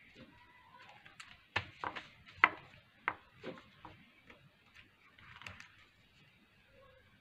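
Scattered light clicks and knocks of wooden ice-cream sticks being handled on a tabletop, with a cluster of sharper taps in the middle, the loudest about two and a half seconds in.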